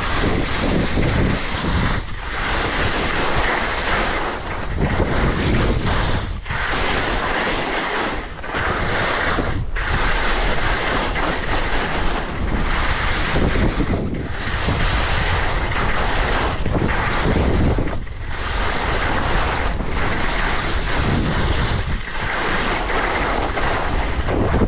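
Wind rushing over an action camera's microphone at skiing speed, mixed with skis scraping over spring snow. The noise is loud throughout and dips briefly every one to three seconds.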